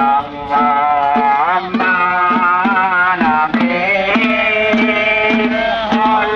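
Music: a bending melody over a steady hand-drum beat of about three strokes a second.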